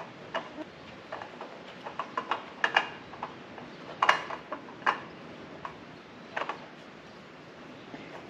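Irregular light clicks and taps of a spin-on oil filter being threaded by hand onto a zero-turn mower engine's filter mount, the loudest about four seconds in.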